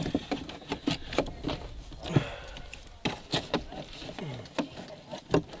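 Irregular clicks and knocks of hands handling the gas engine, its fittings and its fuel and water lines inside the RC boat's hull.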